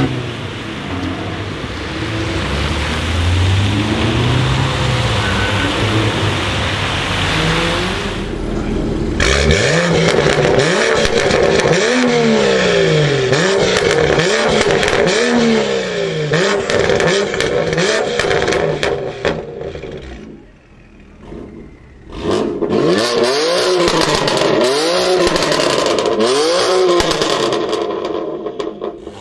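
A BMW M2 F87's turbocharged straight-six with an Akrapovic exhaust, revved while standing: repeated blips that rise and fall in pitch, a short lull, then a run of quicker blips. In the first seconds, before this, traffic passes on a wet road with a steady hiss of tyre spray.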